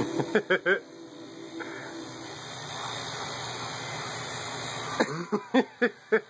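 Electric toothbrush buzzing with a steady hum that fades out in the first couple of seconds. Short, quick vocal bursts come in two runs: three in the first second and about five near the end.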